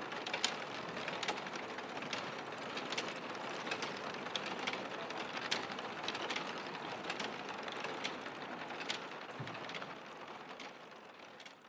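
Factory machinery clattering, a dense run of irregular clicks and knocks over a steady mechanical din, fading out over the last couple of seconds.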